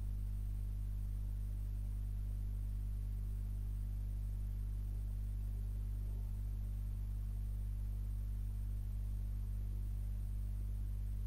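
Steady low electrical hum with faint background hiss and no other sound.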